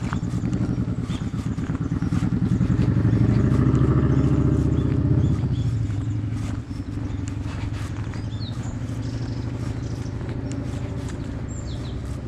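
An engine running steadily, loudest a few seconds in and then easing off a little, with regular footsteps on a path. A bird chirps briefly twice.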